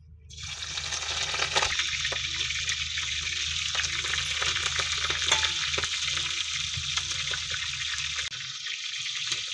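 Whole raw chicken leg pieces sizzling in hot oil in a wok: a dense steady hiss with many small crackles and pops, starting abruptly just after the start as the frying gets under way.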